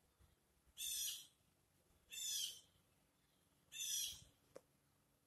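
A high-pitched bird-like call repeated four times, about every one and a half seconds, each about half a second long and falling slightly in pitch. There is a short click between the third and fourth calls.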